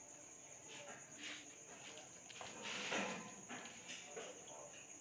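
Crickets trilling steadily, with a few faint clicks and a short hiss about three seconds in.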